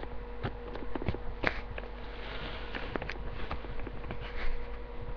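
Handling noise from the computer's webcam being moved about: scattered light knocks and rubs over a steady thin hum.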